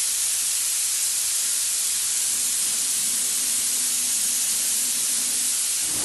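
Compressed air hissing steadily from a paint spray gun, blowing dust off an alloy wheel while it is wiped with a tack cloth, to prepare the wheel for base coat.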